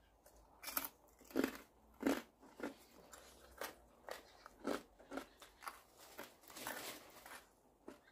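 A person chewing crispy fried pork leg with the crackling skin on, giving a series of sharp, irregular crunches, roughly two a second.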